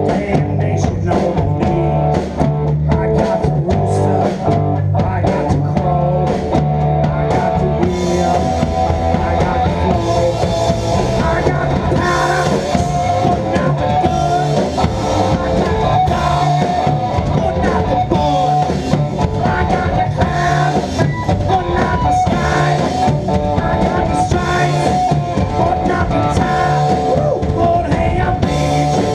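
Live rock band playing an instrumental passage: drum kit, bass and electric guitar, with a held melody line coming in about eight seconds in.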